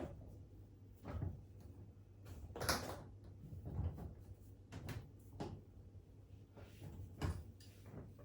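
A string of irregular knocks and clunks, about ten in all, from hands and a tool working at the appliance's bolts; the loudest comes about three seconds in.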